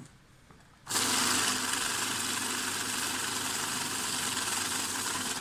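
Secure LD-26M bill counter running a stack of banknotes through its feed rollers: a steady, rapid mechanical rush that starts suddenly about a second in and cuts off at the end as the count of 100 notes finishes.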